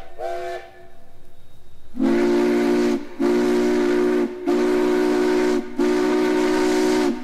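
Steam whistles of Denver & Rio Grande Western narrow-gauge locomotives. #484's whistle gives two short toots, each sliding up in pitch. After a soft hiss, #487's rare whistle sounds four longer steady blasts, lower and sounding several notes at once like a chord.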